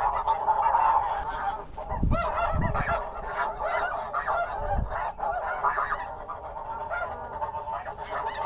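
A large flock of snow geese calling overhead: a dense chorus of many overlapping honks and yelps, slightly louder in the first second.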